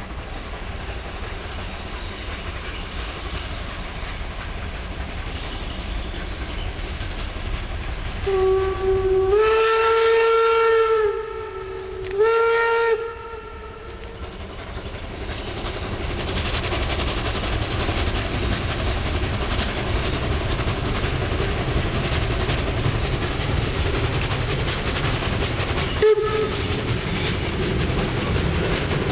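Steam locomotive 52-8038, a German class 52 2-10-0, sounds its steam whistle twice, a long blast and then a shorter one, and the train's running sound then grows louder as it approaches along the line, with a brief toot of the whistle near the end.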